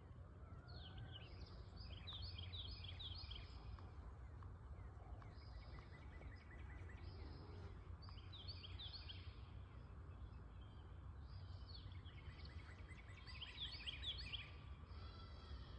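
Songbirds singing in repeated bursts of quick, high, descending notes, three bursts in all, over a faint steady low rumble.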